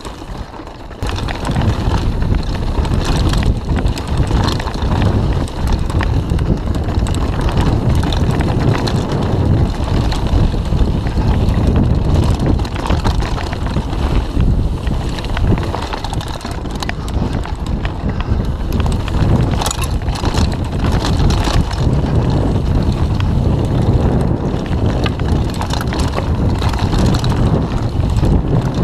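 Mountain bike ridden fast down dry dirt singletrack: wind buffeting the camera's microphone, over the tyres on the dirt and the bike rattling and knocking over bumps. It gets louder about a second in as the bike picks up speed.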